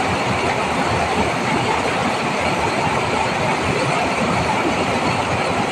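River water rushing over a rocky cascade, a steady, unbroken noise.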